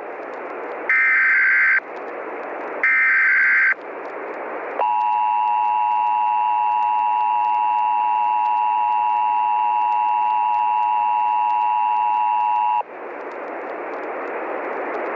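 Emergency Alert System tones announcing a severe thunderstorm watch. First come two short, shrill bursts of the SAME digital header, about a second apart, over static hiss. About five seconds in, the two-tone EAS attention signal starts and holds steady for about eight seconds, then cuts off to hiss.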